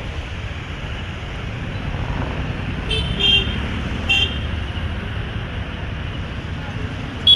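Street traffic with a steady low rumble of engines and tyres. Short vehicle horn toots sound about three seconds in, again a second later, and once more at the very end.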